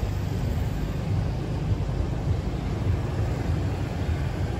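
Street traffic: motorbikes passing, heard as a steady low rumble with no distinct single event.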